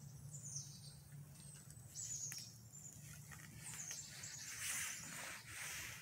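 Faint bird calls: a few short, high, down-slurred notes every second or two, over a low steady hum, with a brief swell of hiss near the end.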